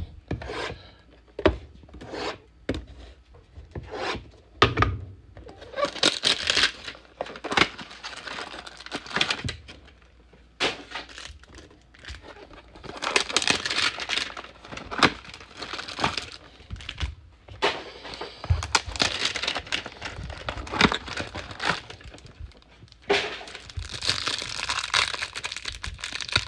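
A cardboard trading-card hanger box being handled and opened: sharp taps and knocks, then repeated tearing of cardboard and crinkling of the plastic pack inside, which is torn open near the end.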